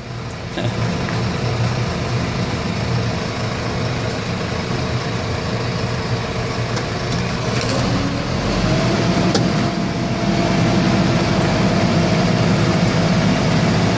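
New Holland T4.95 tractor's four-cylinder diesel engine running at low revs, near idle, while it drags a large wet ash log up out of a ravine. About eight seconds in, the engine note rises slightly and gets louder as the load comes on.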